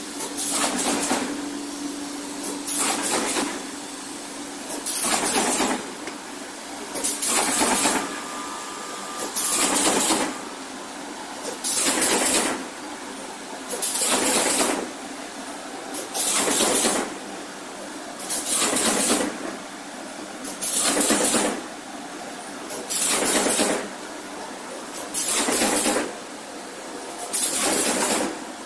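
Cardboard partition assembly machine running in a steady cycle: a loud, noisy burst from each stroke about every two seconds over a steady background machine noise.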